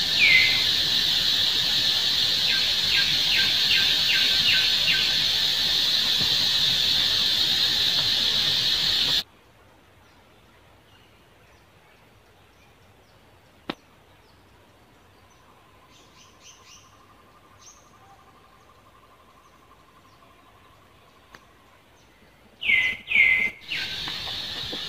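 A steady, high-pitched insect drone for about the first nine seconds, then it cuts off abruptly to a quiet stretch with a few faint chirps. Near the end come a few short, loud, high calls that fall in pitch, and the drone starts again.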